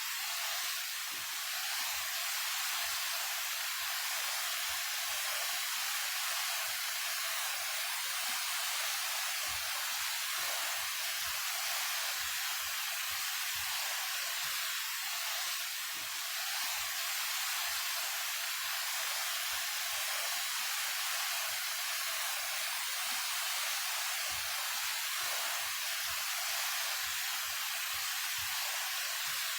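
Daehye Falls, a 28 m waterfall, pouring in a steady, even hiss of falling water with little low rumble.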